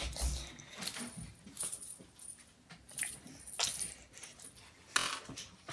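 A thin metal chain necklace jingling and clinking in the hands, in several short rattling bursts.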